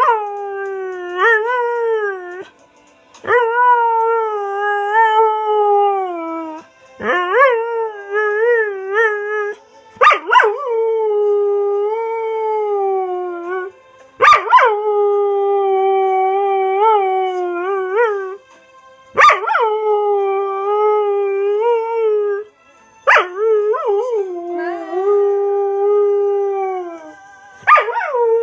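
Border collie howling along to music: a series of about eight long howls, each opening with a sharp rise and fall in pitch, then held and wavering for a few seconds, with short breaks between them.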